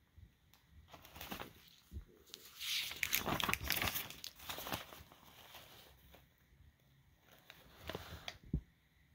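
Paper rustling as a page of a lined notepad is turned, loudest two to four seconds in, followed by a second shorter rustle and a sharp click near the end.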